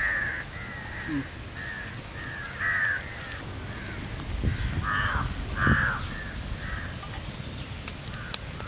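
Crows cawing over and over, a dozen or so short harsh calls at irregular intervals, the loudest a little past halfway.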